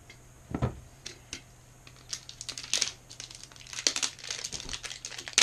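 Handling noise from a stainless steel tiffin cook set being opened and checked: packaging crinkling and rustling, with light metal clicks and a dull knock about half a second in.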